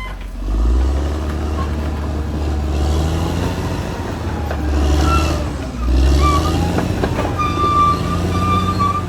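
Caterpillar D6R XL crawler bulldozer's diesel engine running under load, its low hum swelling and easing several times as the machine works.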